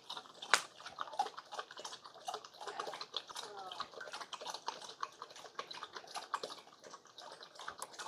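A dog lapping water from a stainless steel pet water fountain: a quick, irregular run of wet laps and small splashes.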